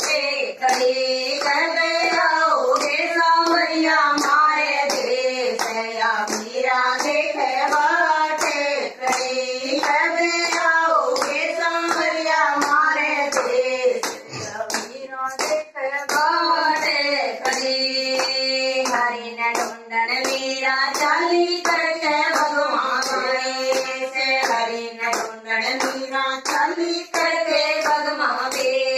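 Women's voices singing a devotional song together, unaccompanied, with steady hand-clapping keeping the beat.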